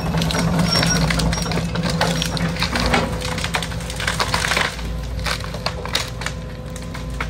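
Excavator engine running steadily while its MDE Scorpion S1600 hydraulic grab crushes and breaks demolition debris, with repeated cracking and clattering impacts that are thickest about four to five seconds in.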